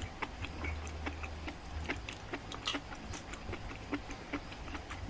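Close-miked chewing of a burger: irregular wet mouth clicks and smacks, several a second, over a low steady hum.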